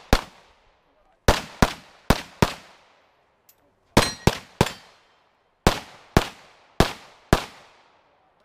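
9mm Major Open-division competition pistol firing about a dozen shots, mostly in quick pairs about a third of a second apart, with short pauses between pairs.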